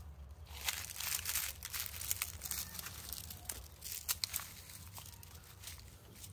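Dry leaves, grass stems and twigs crackling and crunching under a foot in thin socks, as a run of irregular crackles that thins out after about four and a half seconds, over a steady low rumble.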